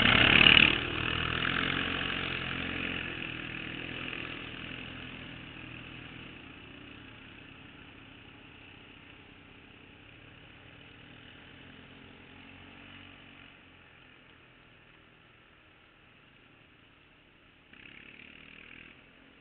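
Two ATV engines passing close by, loud for about the first second, then fading steadily as they drive away over several seconds.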